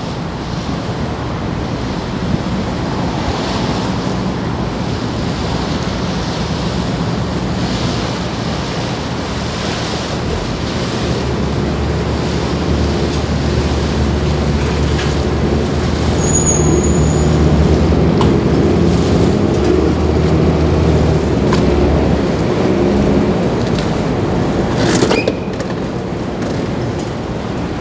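Small harbour passenger ferry, No. 18 Wakato Maru, running its engine and churning the water as it comes in to berth at a floating pier, with wind on the microphone. The engine drone grows heavier from about a third of the way in for some ten seconds as the boat works to slow and come alongside, with a brief high beep in the middle and a single knock near the end.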